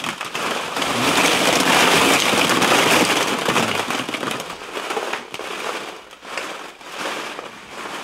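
Hollow plastic ball pit balls clattering against one another as a person moves through a car packed with them. A dense rattle that thins to scattered clicks about halfway through.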